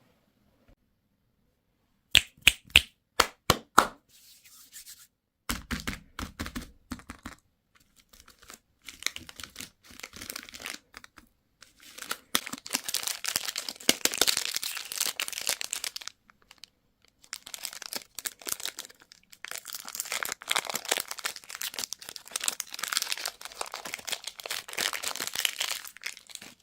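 Candy packaging being torn open and crinkled by hand: a few sharp clicks about two seconds in, then bouts of crackling, crinkling rustle that grow longer and louder toward the end.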